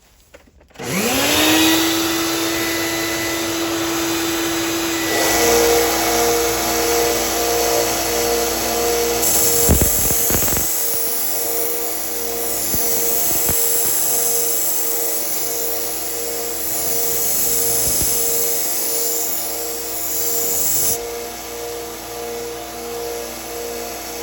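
A 1x30 belt sander's motor spins up about a second in and settles into a steady hum. From about five seconds in, a 120-grit Cubitron belt grinds a steel knife blade to thin it, a steady grinding noise with a pulsing tone.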